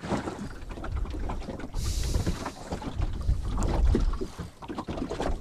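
Wind rumbling on the microphone aboard a small old wooden boat rocking in a choppy sea, with scattered small knocks and clicks and a brief hiss about two seconds in.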